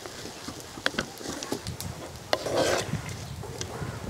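A spatula stirring and turning soaked poha in a dark cooking pot, with scattered soft clicks and taps against the pot and a louder rasping scrape about two and a half seconds in.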